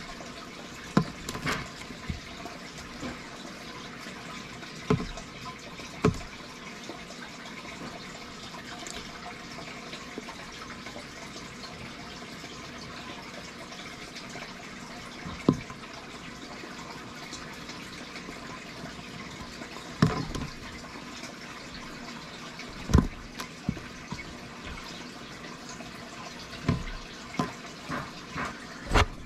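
Steady rushing hiss like running water, with a dozen or so sharp clicks and knocks at irregular intervals. The knocks come from dubia roaches being fed to a giant African bullfrog with metal tongs in a plastic tub.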